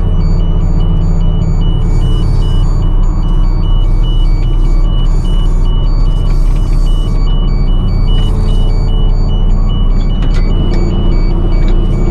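Combine harvester's diesel engine and threshing machinery running steadily under load, a loud, even drone heard from the operator's cab, with a few sharp clicks near the end.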